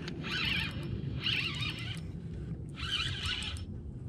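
Fishing reel working against a hooked bass in three short bursts, each under a second, over a low steady rumble.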